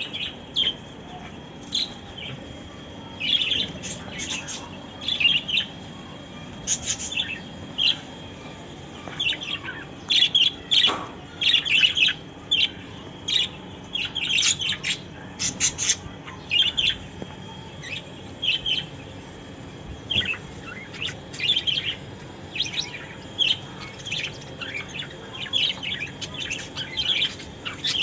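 Caged budgerigars chirping: a steady run of short, high chirps, densest about halfway through.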